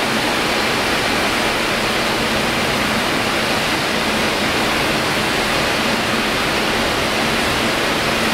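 Steady machinery noise in a large hall: a loud, even hiss with a faint constant hum beneath it.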